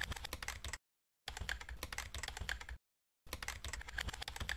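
Computer keyboard typing in rapid bursts of clicks, each about a second and a half long, with dead-silent gaps between. The first burst ends almost a second in, another runs through the middle, and a third starts about three seconds in.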